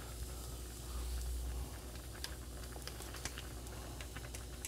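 Faint, irregular small pops and crackles of food cooking on the stove: udon broth simmering in the pot and shrimp frying in the pan, over a low steady hum.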